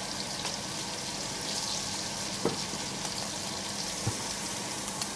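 Pork roast sizzling as it sears in hot fat in a frying pan: a steady crackling hiss. A few light clicks of tongs against the pan and meat.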